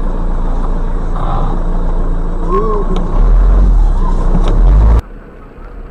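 Engine and road rumble inside a car, picked up by a dashcam: a loud, steady low rumble that grows heavier about three seconds in, with a few brief wavering high tones over it. It cuts off suddenly about five seconds in.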